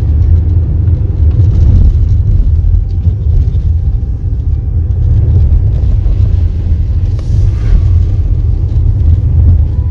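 Car driving on a rough, patchy road, heard from inside the cabin: a loud, steady low rumble of tyres and engine.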